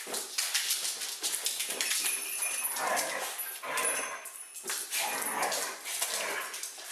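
A dog playing with air-filled latex balloons on a hardwood floor: small dog whines and yips over a run of quick clicks and scuffles as it jumps at and bats the balloons.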